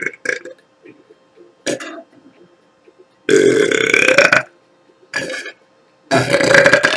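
Woman belching: two long, loud burps, one about three seconds in lasting over a second and another starting near the end, with a few brief sounds between them.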